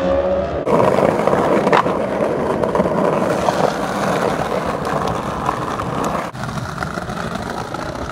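Skateboard wheels rolling over rough street pavement in a steady grinding rumble, with a sharp clack about two seconds in. The sound changes abruptly twice where the shots cut.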